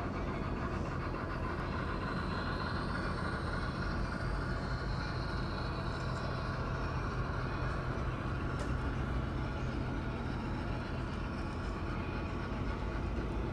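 HO scale model train running on the layout: a steady train rumble with a held engine hum.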